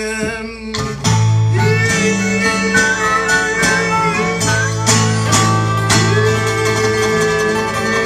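Live acoustic blues with a harmonica playing long held notes and bends over acoustic guitar. It is an instrumental break with no singing, and the band comes in fuller about a second in.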